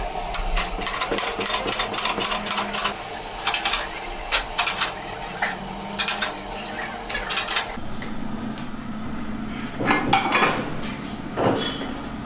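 Metal clicking and clanking as the threaded screw clamps of a tyre spreader holding a truck tyre are cranked and adjusted, a fast irregular run of sharp clicks, then a couple of heavier metal knocks near the end.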